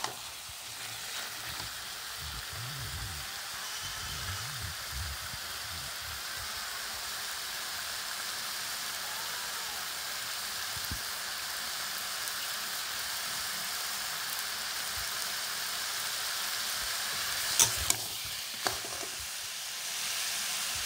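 Potato pieces sizzling steadily as they fry in oil and spices in a kadai. Near the end a metal spatula clicks sharply against the pan a few times.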